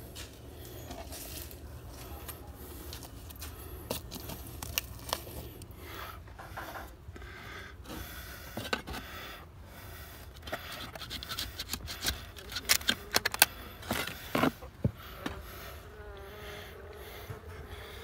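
Scraping, rubbing and sharp clicks as a spatula cuts crunchy honeycomb from a bee colony inside a wall cavity. The clicks come thicker and louder over the last few seconds.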